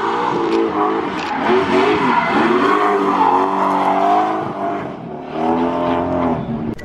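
A drift car's engine revving hard, its pitch rising and falling as the throttle is worked through a slide. The tyres squeal and skid under wheelspin as they smoke. The revs dip briefly about five seconds in, then climb again.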